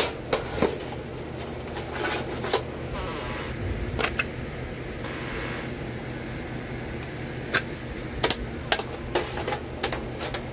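Handling of a metal tin of bits and a metal cantilever toolbox: scattered light metallic clicks and knocks, with two short scraping or sliding sounds about three and five seconds in, over a steady low hum.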